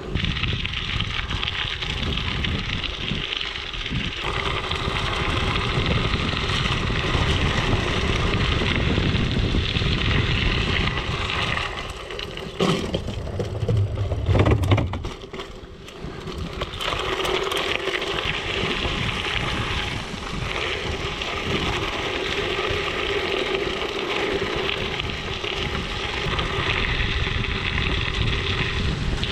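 Mountain bike tyres rolling over gravel: a steady crunching hiss. Near the middle this breaks into sharp clicks and a loud thump.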